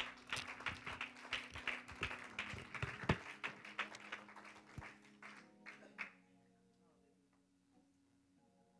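Congregation clapping over soft music with held notes; the applause dies away about six seconds in, leaving the faint music.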